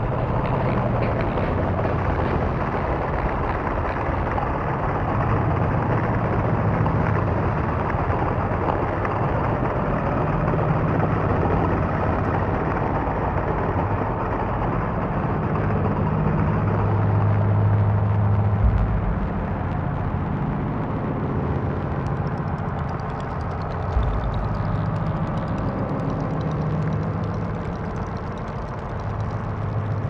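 Experimental electronic techno: a dense noise texture over low droning tones that step between pitches, with two short low thumps in the second half.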